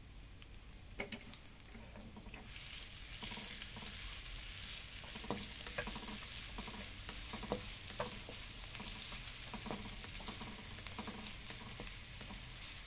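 Minced garlic, shallots and ginger frying in oil in a nonstick wok. The sizzle swells about two and a half seconds in, with a spatula scraping as it stirs them, frying the aromatics until fragrant.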